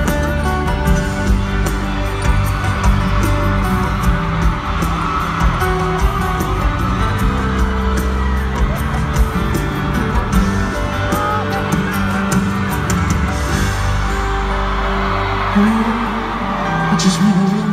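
Loud live pop music from an arena concert, with a steady drum beat. The beat stops about thirteen seconds in, leaving held low notes.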